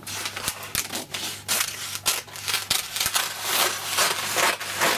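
Scissors cutting across a sheet of wonder web fusible web: a quick run of snips with a crackling rustle of the sheet.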